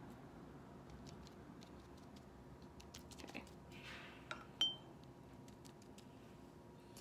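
Quiet room tone with soft brush dabs on wet watercolor paper about three to four and a half seconds in, followed by a single short ringing clink.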